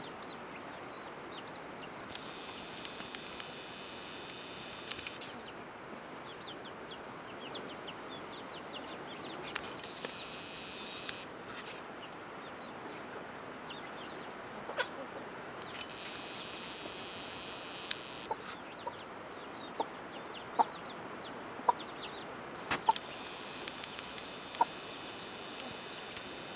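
Buff Orpington hen clucking with short, sharp clucks, louder and more frequent in the second half, while her chicks peep in thin, high cheeps throughout. A high buzzing trill comes and goes four times, a few seconds each time.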